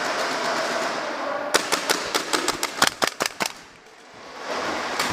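Airsoft guns firing: an uneven string of about a dozen sharp cracks over two seconds, coming after a steady rushing noise.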